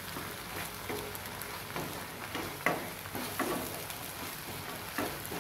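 Okra sizzling in a thickening tamarind sauce in a pan while a wooden spatula stirs it. The spatula's strokes scrape and tap against the pan about once a second.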